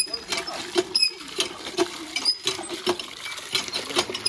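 Cast-iron village hand pump being worked in quick strokes, about two a second, its handle squeaking and clanking, with water splashing from the spout into an aluminium bucket.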